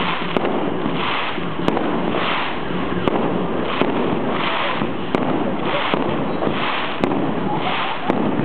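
Aerial fireworks shells going off in quick succession: sharp bangs about once a second over a continuous din.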